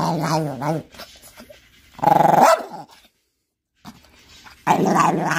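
Small dog making drawn-out, wavering growly vocalizations while eating a treat, a talking-like 'nom nom' sound. One bout fades just under a second in, a short louder cry comes about two seconds in, and another long bout starts near the end.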